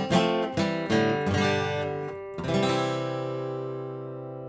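Acoustic guitar music, strummed chords, ending on a final chord about two and a half seconds in that rings out and slowly fades.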